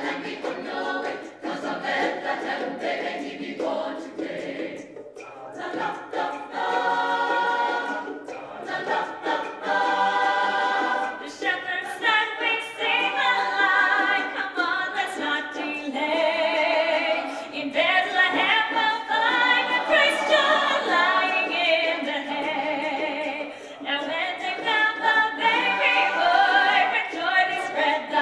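Choir singing in harmony, in sung phrases with short gaps, growing fuller and louder about halfway through.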